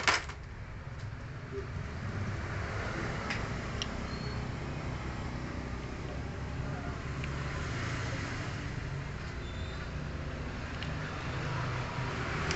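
Honda Karisma's single-cylinder four-stroke engine running at a steady idle, with one sharp click at the start.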